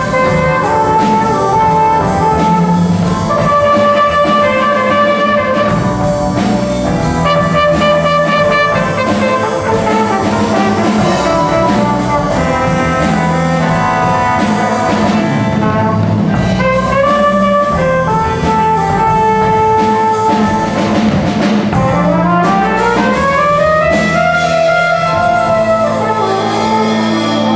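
Jazz band playing live: a horn section of trumpet, trombone and saxophone plays ensemble lines over bass, keyboard and drums, with a steady cymbal beat. Near the end the horn lines rise together.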